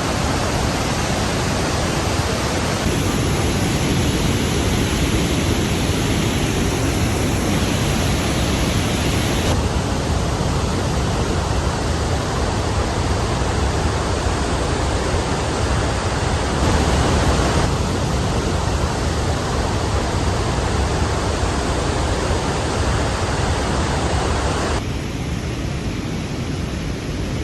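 Loud, steady rush of a large waterfall: glacial meltwater of Trümmelbach Falls cascading through gorges inside the mountain. Its tone changes abruptly a few times.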